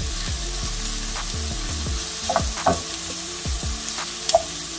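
Chopped onion and garlic sizzling in olive oil in a skillet over medium-high heat, with a steady hiss. A wooden spoon stirring them gives a few short scrapes and knocks against the pan.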